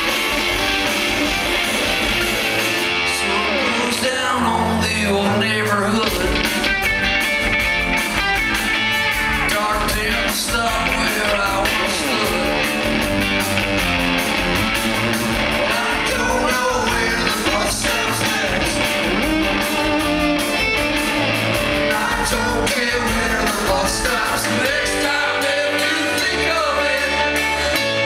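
Live rock band playing a song, with a sung vocal over electric guitars.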